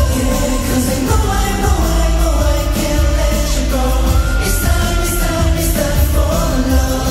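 Live K-pop performance heard from within the arena crowd: male group vocals over a pop backing with heavy bass and cymbals, loud and steady.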